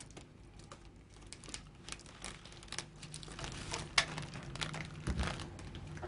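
Crinkling and rustling of a crinkly food package being torn open and handled, with scattered small clicks. A sharp click about four seconds in as it is tipped over a metal cake tin, and a dull thump about a second later.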